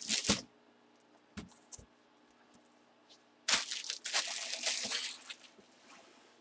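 Card packaging being handled: a short crinkle at the start and two light knocks, then a longer stretch of crinkling and scraping about three and a half seconds in.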